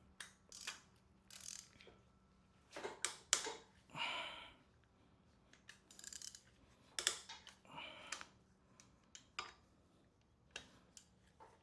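Hand tools working on engine bolts with an E10 Torx socket: irregular metallic clicks and clinks with short ratcheting rasps.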